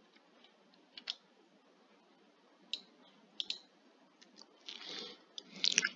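Quiet, irregular computer mouse clicks, about ten sharp ones, with a brief softer noise about five seconds in.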